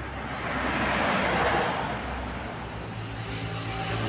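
A motor vehicle passing, its noise swelling to a peak about a second and a half in and then fading, with another engine growing louder near the end.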